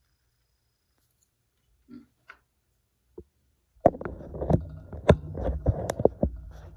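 Handling noise: a few faint taps, then about three seconds of rubbing and rumbling broken by several sharp knocks.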